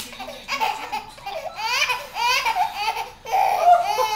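Baby laughing in a run of short bursts, with a longer, louder laugh near the end.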